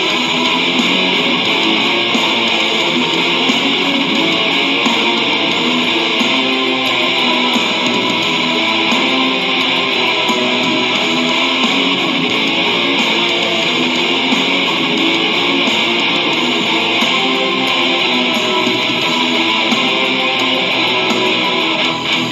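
Metal recording: distorted electric guitars strummed in a dense, unbroken wall of sound.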